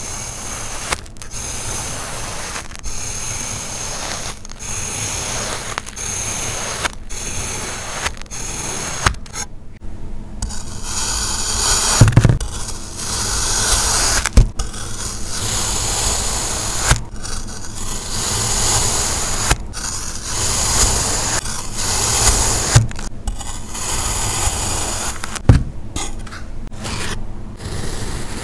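Kinetic sand being cut and scraped close up: a crunchy, gritty scraping that stops briefly about once a second at first, then runs louder and denser, with a few soft thumps.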